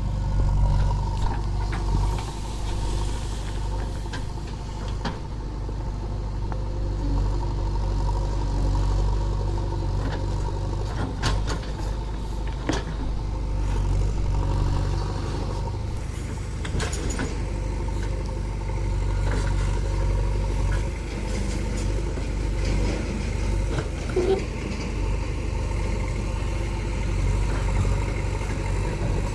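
Diesel engine of a JCB 3DX backhoe loader running steadily at a low, even speed, with a few short knocks now and then.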